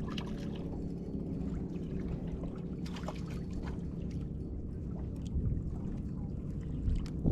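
A steady low motor drone, with a few faint light clicks over it.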